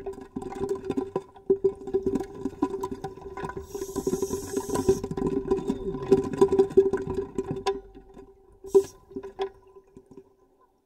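Muffled underwater bubbling and gurgling of a scuba diver's exhaled bubbles, heard through a camera housing over a steady low hum. There is a brief hiss about four seconds in. The bubbling dies away after about eight seconds, leaving a few faint clicks.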